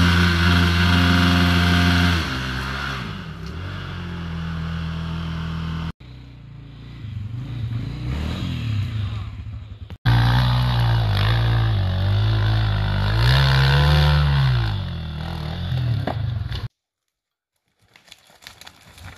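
Dirt bike engine running hard, its pitch dropping away and rising again as the throttle is worked, across several hard-cut clips. It stops abruptly near the end, leaving only faint crackling.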